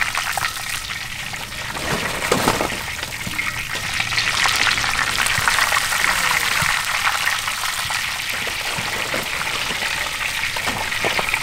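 Battered chicken pieces deep-frying in a wok of hot oil, a steady crackling sizzle as they are lifted out with a wire mesh skimmer. A couple of brief knocks sound about two seconds in and near the end.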